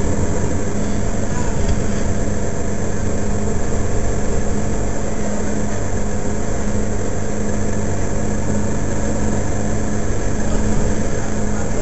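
Mercedes-Benz Citaro Facelift city bus engine idling steadily while the bus stands still.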